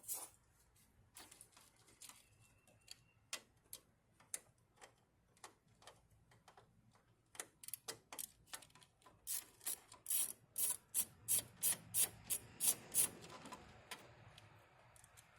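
Sharp clicks and ticks of hand tools at work on the truck: scattered at first, then a quick run of louder clicks at about three a second over the last several seconds.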